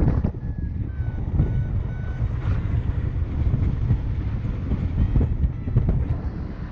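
Airflow buffeting the microphone of a paraglider pilot in flight, a steady low rumble. Faint short beeps, about two a second and falling slightly in pitch, stop about two seconds in.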